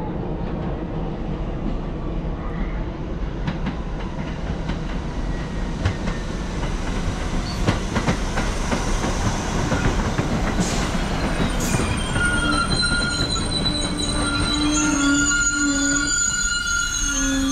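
R62A subway train on the NYC 1 line pulling into the station, its wheels rumbling and clicking over the rail joints. In the second half the wheels squeal in several high, steady tones.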